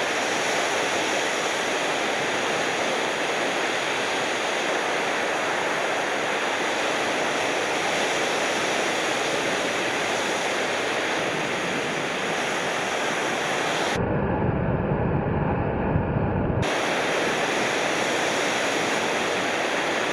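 Ocean surf: waves breaking and washing steadily. About two-thirds of the way in, the sound turns dull for a couple of seconds, the hiss gone and a deep rumble in its place.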